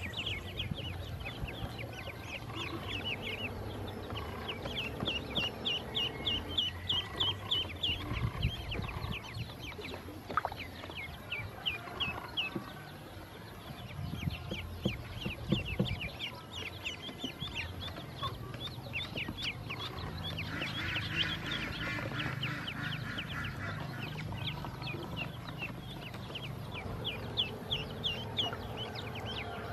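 Ducklings peeping: a near-continuous stream of short, high peeps, several a second.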